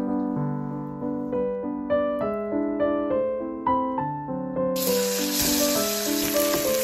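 Gentle solo piano music; about two-thirds of the way in, a steady sizzling hiss of a salmon fillet frying in oil in a pan joins it.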